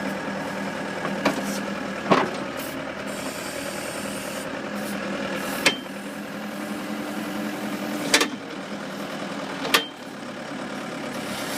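Bobcat 863 skid steer's diesel engine running steadily while powering a Bobcat 909 backhoe attachment at work, with about five sharp knocks from the backhoe spread through the stretch.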